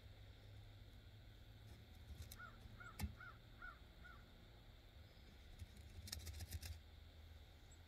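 A crow caws faintly five times in quick succession. One sharp click comes during the calls, and a quick run of light clicks follows about six seconds in, as the steel grill rack is shifted on its hanger rod.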